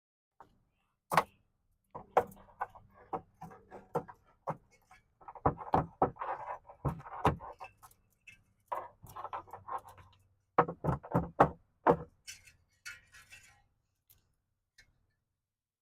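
Handling noises: a run of sharp clicks and light knocks in clusters, with rustling in between, the loudest knocks about a second in and near eleven to twelve seconds in.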